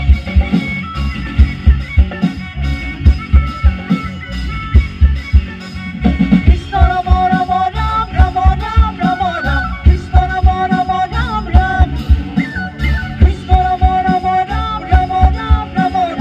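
A recorded song playing loud over a sound system during a sound check: a pounding bass beat throughout, with a singing voice coming in about six and a half seconds in.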